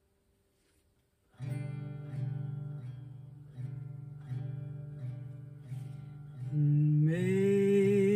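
Acoustic guitar strummed slowly, a chord about every three-quarters of a second, starting after a second or so of near silence. About seven seconds in, a woman's voice comes in over it, singing a long held note.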